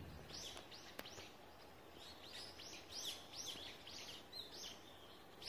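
Faint chirping of a small bird: a run of short, high chirps that slide downward, a few a second, with a single sharp click about a second in.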